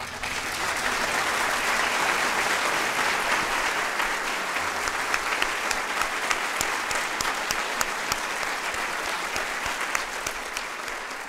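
Audience applauding after a live dance performance. It starts abruptly, holds steady with individual sharp claps standing out, and tapers off near the end.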